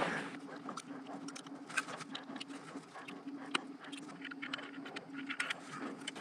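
Scattered light clicks and taps as a cell booster's metal outside antenna, its spring mount and cable are handled and fitted together by hand, over a faint steady hum.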